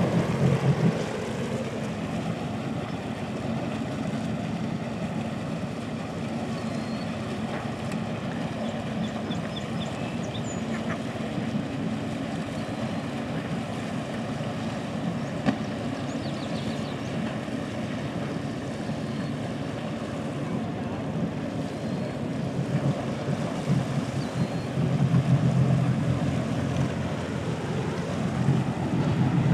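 Boat engines running at low speed, a steady low drone from a sailboat motoring through a harbour channel and from idling jet skis. It grows louder near the end as the sailboat passes close.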